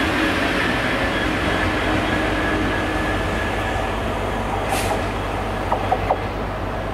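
Class 66 diesel locomotive's two-stroke V12 engine running steadily as the locomotive passes and draws away, the sound easing slightly. A short hiss comes about five seconds in, then a few sharp clicks.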